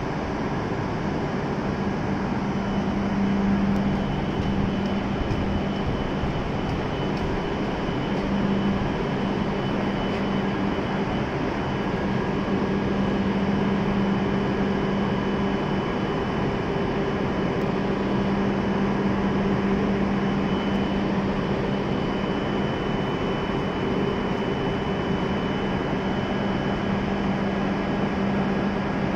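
E7-series Shinkansen train standing stopped at the platform, its onboard equipment giving a steady hum with a low drone and a faint high whine.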